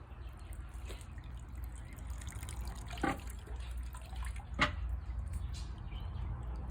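Water dripping, with two clear drops about a second and a half apart over a low steady hum.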